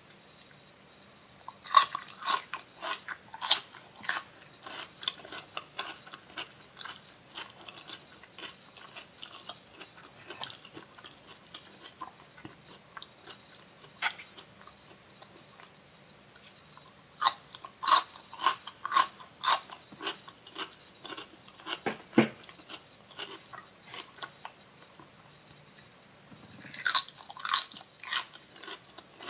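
Crunching of raw vegetable sticks, daikon radish and cucumber: sharp crisp bites followed by wet chewing crunches. They come in clusters a few seconds apart, the loudest near the start, around two thirds in and near the end.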